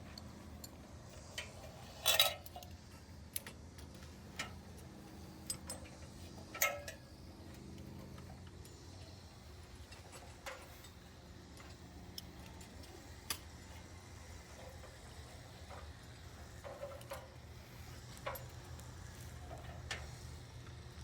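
Scattered metallic clicks and clinks of fall-protection hardware being handled, over a low steady hum; the loudest clinks come about two seconds in and again near seven seconds.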